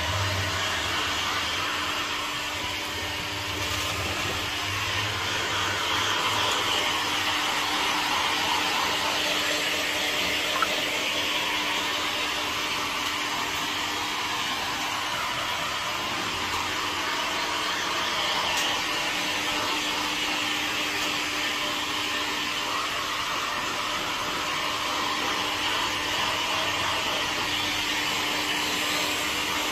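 Handheld electric hot air gun blowing steadily to heat-shrink plastic shrink wrap over a framed print: a continuous rush of air over a steady motor hum.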